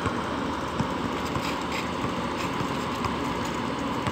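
A basketball bouncing twice on an outdoor concrete court, near the start and about a second in, over a steady engine-like hum.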